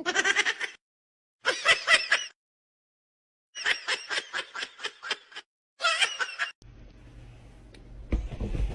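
Someone laughing in four short bursts of rapid, pulsing ha-ha sounds with silent gaps between them. A faint low hum follows near the end.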